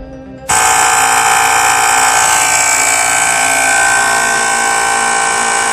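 Homemade electric coconut grater running: its self-built brushless motor spinning the grater at speed, a loud, steady high whine with a hiss, which starts abruptly about half a second in and cuts off sharply at the end.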